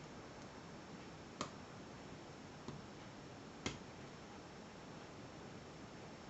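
Pick and tension tool working the pins of a Wilson Bohannan five-pin padlock under heavy tension: a few separate sharp clicks, one about a second and a half in, a faint one near the middle and the loudest a little later.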